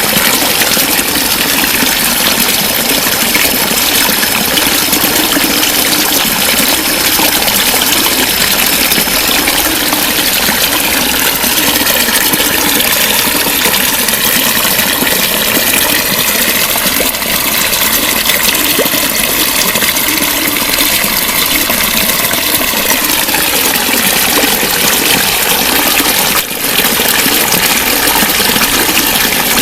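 Water flowing and gurgling in a steady, loud rush.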